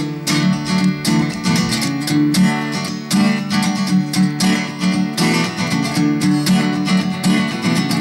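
Acoustic guitar strummed in a steady, even rhythm, an instrumental passage with no singing.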